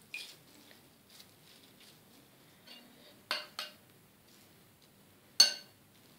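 A few light clinks of dishware: two quick ones a little past halfway, then a sharper one with a short ring near the end.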